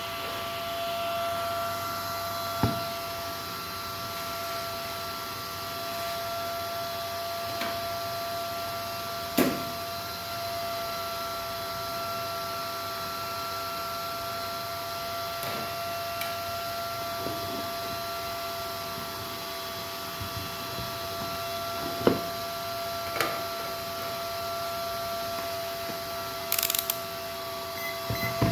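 Electric fish shocker's inverter circuit running, giving a steady high-pitched electronic whine of several tones, with a few sharp clicks over it.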